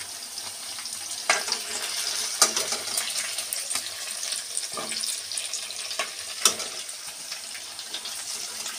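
Manchurian balls deep-frying in hot oil in a metal kadhai: a steady sizzle, with a few sharp clinks of the metal spatula against the pan as the fried balls are lifted out.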